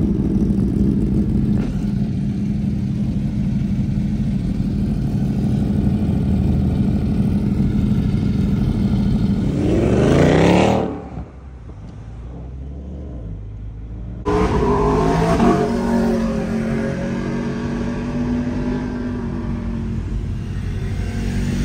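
Vehicle engine running steadily, then revving up sharply about ten seconds in and falling away to a low rumble. A few seconds later engine noise starts abruptly again, revs, and settles to a steady run.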